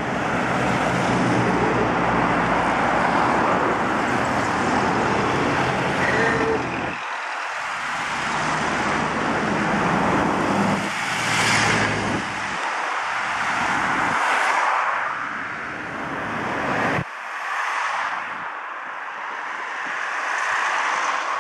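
Vintage cars and modern traffic driving past on a city road: engines running and tyre noise. A steady low engine note runs for the first several seconds, and one vehicle passes close about eleven seconds in.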